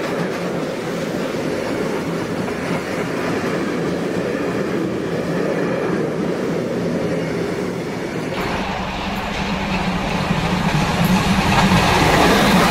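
Steam-hauled passenger train running steadily, heard from an open carriage window behind a Bavarian S 3/6 steam locomotive. About eight seconds in, the sound cuts to the same train heard from the lineside. It is louder and fuller, with a deeper rumble, as the locomotive approaches.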